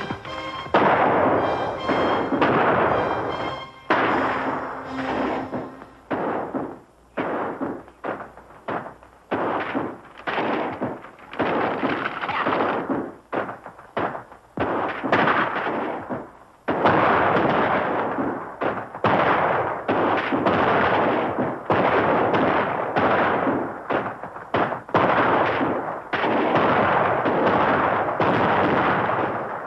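A gunfight: many gunshots in quick succession, each with a short echoing tail, coming sparser at first and thick and fast in the second half.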